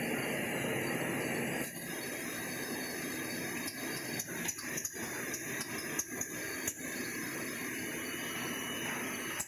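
Robotic biscuit packing line running: steady machinery noise from the conveyors and pick-and-place loaders, with a run of sharp clicks between about 4 and 7 seconds in.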